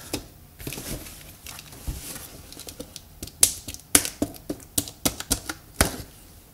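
Shipping box or package being opened by hand: a run of irregular sharp clicks, taps and scrapes, the loudest between about three and a half and six seconds in.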